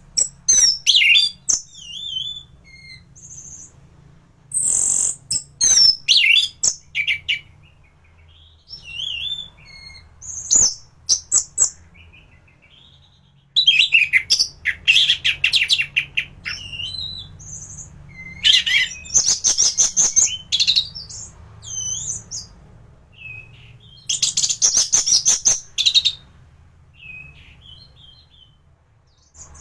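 Orange-headed thrush (anis merah) singing a varied song of high whistled phrases and fast runs of repeated notes, in bursts with short pauses between them, over a faint low hum.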